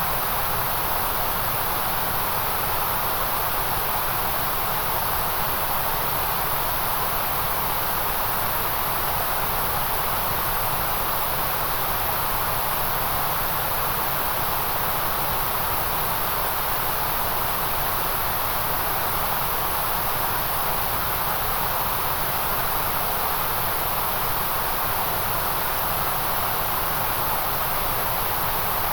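Steady white noise track: an even, unchanging hiss with no breaks or events, heaviest in the high treble and the midrange.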